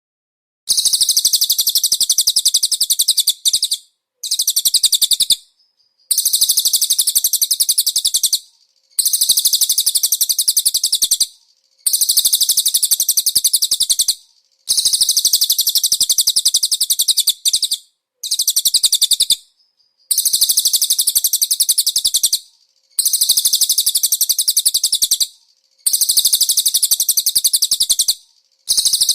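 Cililin songbird giving a very rapid, high-pitched chattering trill in bursts of two to three seconds, broken by short pauses, about ten bursts in all.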